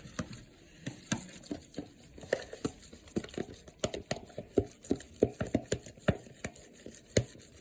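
Glue-and-activator slime mixture being stirred, with short irregular clicks and taps several times a second.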